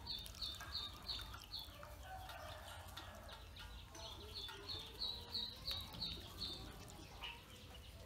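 Ducklings peeping: runs of short, high calls, about three a second, at the start and again from about four seconds in, over light splashing as they paddle in a basin of water.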